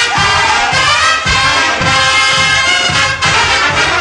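Brass band playing a morenada: brass instruments over a steady bass drum beat.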